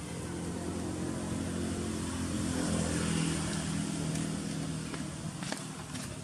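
A motor engine's drone that grows louder to a peak about halfway through and then fades, like a vehicle passing by.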